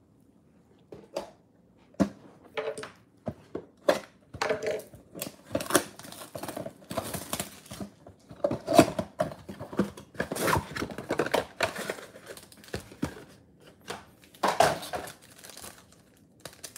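Plastic shrink-wrap crinkling and tearing as it is stripped off a sealed trading-card box, then the cardboard flap pulled open, in a quick run of short crackles and rustles that begins about a second in.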